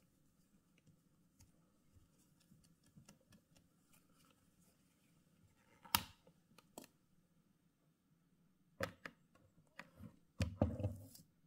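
Handling a glossy black watch box: faint rubbing of a cloth over the lid, a sharp click about halfway through as the small metal front clasp is flipped, then a few clicks and a short run of knocks near the end as the lid is opened.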